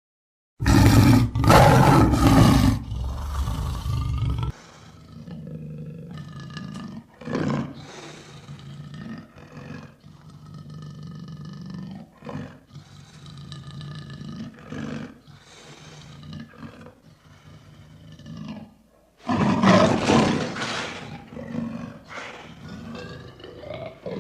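Big cat roaring: loud roars starting about half a second in, then a long run of quieter, lower growls and grunts, and another loud roar about three-quarters of the way through.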